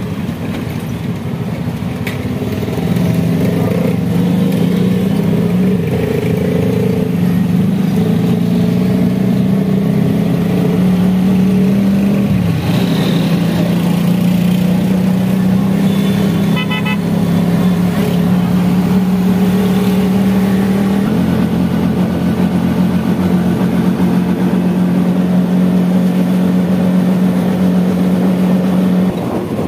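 Vehicle engine running at a steady speed while moving through city traffic, its drone holding a near-constant pitch with a couple of small shifts. A brief rapid-pulsing horn sounds about two-thirds of the way through.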